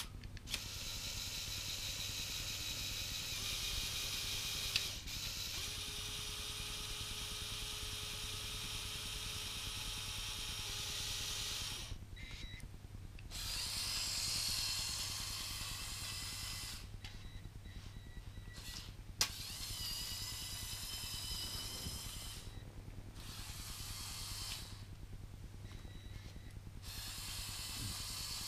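Small electric Power Functions motors and plastic gears of a LEGO Technic Volvo L350F remote-control wheel loader whirring as it drives and works its lift arm. The whir runs in stretches with several short pauses, and there is a sharp click about 19 seconds in.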